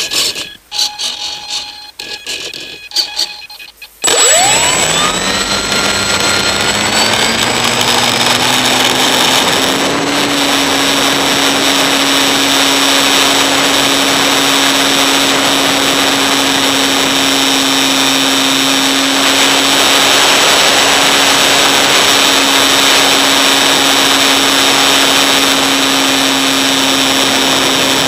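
Model plane's motor and propeller heard from the onboard camera. For the first few seconds there are a few bumps and knocks, then about four seconds in the motor spools up with a rising whine and settles into a steady high-speed drone with air rushing past as the plane climbs out and flies.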